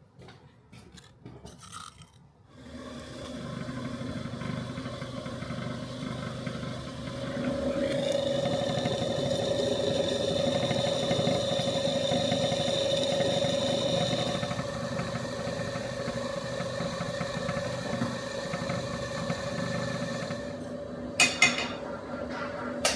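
A power grinder starts a few seconds in and runs steadily at a constant pitch. A higher whine joins for several seconds in the middle, while it is at its loudest. Two sharp knocks come near the end.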